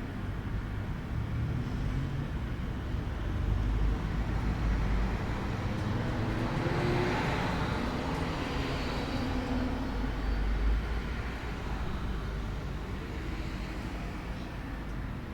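Outdoor ambience: a steady low rumble, with a broad swell that rises about six seconds in and fades again a few seconds later, like a vehicle or aircraft passing at a distance.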